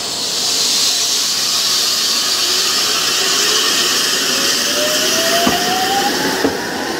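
Electric train pulling away from a station: a steady hiss with the motors' whine rising in pitch as it gathers speed, and two sharp clicks about a second apart near the end.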